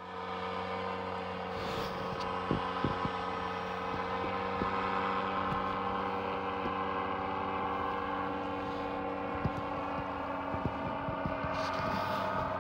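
Powered paraglider (paramotor) engines droning steadily overhead at constant throttle, with a few light clicks scattered through.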